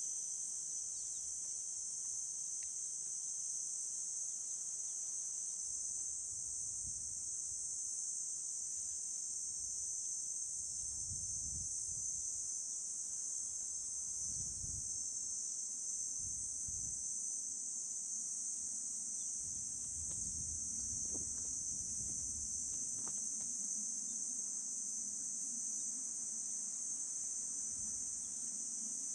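Steady, high-pitched chorus of insects droning without a break, with a few faint low rumbles now and then underneath.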